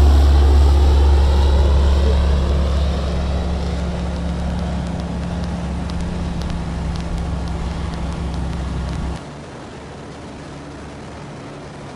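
Just Aircraft SuperSTOL bush plane flying past overhead, its engine and propeller drone loud at first, then falling slightly in pitch and fading as it moves away. About nine seconds in, this gives way abruptly to a quieter steady engine drone heard from inside the cockpit.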